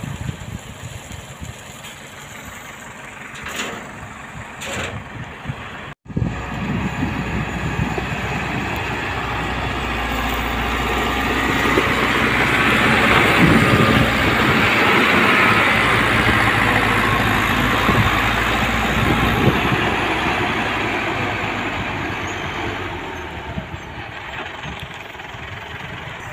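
Motor grader's diesel engine running close by as its blade pushes and spreads gravel, with a gritty scraping mixed in. It swells to its loudest about halfway through and eases off near the end. Before a cut a few seconds in, a quieter engine and wind come from the dump truck tipping its load.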